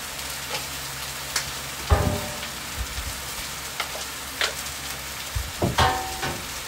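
Chicken, mushrooms and cheese sizzling steadily on a hot Blackstone flat-top griddle, with scattered small clicks and one thump about two seconds in.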